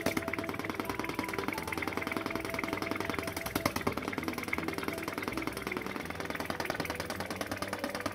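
Small model vacuum (flame-eater) engine, with a steel piston in a cast iron liner, running steadily on its gas flame. It makes a rapid, even clicking clatter.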